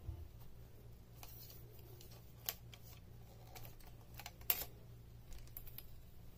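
Light clicks and clacks of a YunTeng VCT-5208 tripod's legs and leg brace being unfolded by hand, with two sharper snaps about two and a half and four and a half seconds in.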